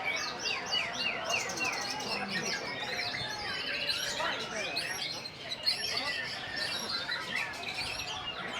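Several caged white-rumped shamas (murai batu) singing at once in contest, a dense overlapping chorus of loud whistles, trills and chattering phrases with no break.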